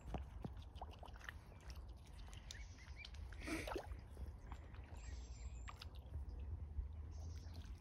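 Mute swans and cygnets feeding in the shallows: soft water dabbling and small splashing clicks, with a louder splash about three and a half seconds in, over a low steady rumble.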